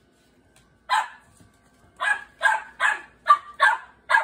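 Young Great Bernese (Great Pyrenees × Bernese mountain dog cross) barking: a single bark, then after a short pause a quick run of six barks, about two and a half a second.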